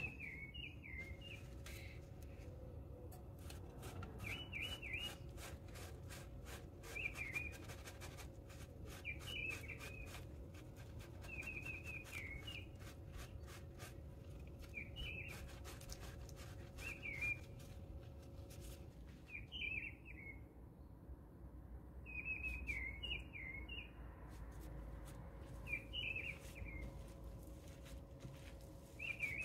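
A small bird chirping in short bursts of quick, high chirps, repeated every two to three seconds, over faint scattered clicks and taps.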